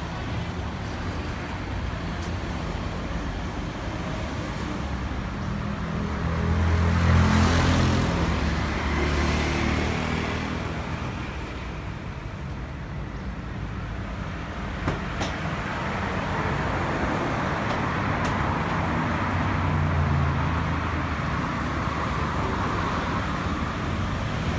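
Road vehicle engines and tyre noise, a steady rumble with a hiss that swells as vehicles pass, about seven seconds in and again about twenty seconds in.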